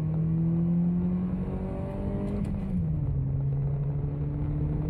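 Mercedes-Benz SLK 200's 2.0-litre M111 inline-four engine pulling hard under full-throttle acceleration, heard from inside the car. Its note climbs slowly, drops in pitch a little under three seconds in, then holds steady.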